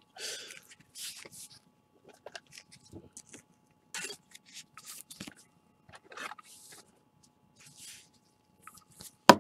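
Trading cards handled by gloved hands: short rustles and scrapes as cards are leafed through and one is slid into a rigid plastic toploader, with a sharp click near the end.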